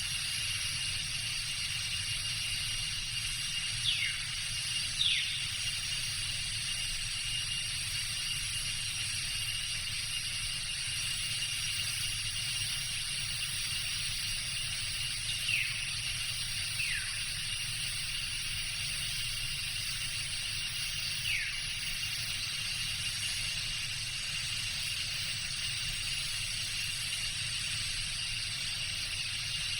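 Tropical jungle ambience: a steady high-pitched insect drone with a thin, steady whine under it and a low rumble. Five short whistled calls slide quickly downward, a pair, then another pair, then a single one, typical of a forest bird.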